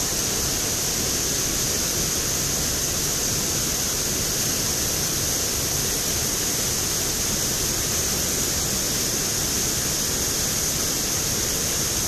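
Rushing water of a mountain stream cascading over boulders: a steady, even hiss that does not change.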